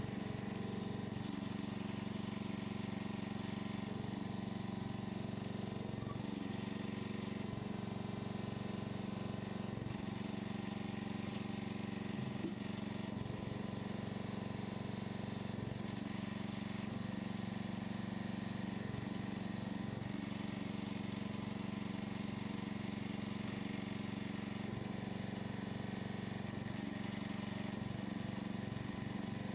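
Engine running steadily at a constant speed, powering a homemade hydraulic log splitter while logs are split.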